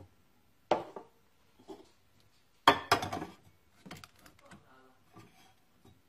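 A drinking glass and cup knocked and set down on the coffee machine's metal drip tray: one sharp clink about a second in, a louder cluster of clinks and knocks near the middle, then a few light taps.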